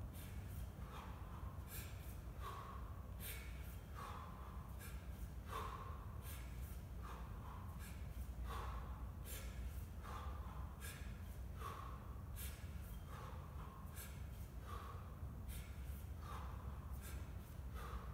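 A man's hard, rhythmic breathing under exertion: short forceful breaths, about one every three-quarters of a second, in time with repeated kettlebell cleans.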